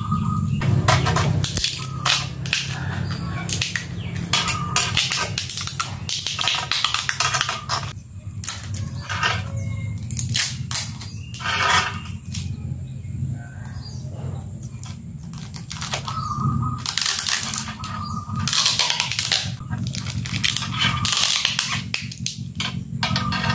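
Clear packing tape being pulled off its roll again and again as it is wound around a fishing-rod grip, in repeated noisy pulls lasting about a second each.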